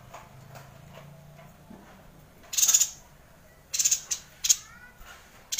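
Caged yuhina calling in short, high-pitched bursts, the first about two and a half seconds in and then several more in quick succession, with a couple of thin curving notes among them.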